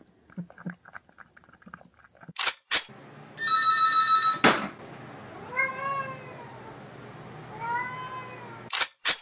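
A landline telephone ringing for about a second and a half, cut off by a sharp clatter as a cat paws at the receiver; the cat then meows twice. Before that, faint soft clicks of a cat lapping water from a glass bowl.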